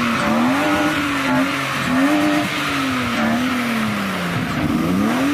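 Car engine revving up and down repeatedly, its pitch climbing and falling back several times.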